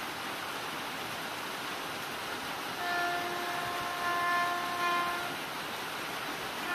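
Indian Railways locomotive horn blown in one long steady blast, about three seconds in, lasting roughly two and a half seconds with a brief dip partway. It sounds over a steady rushing noise of the line.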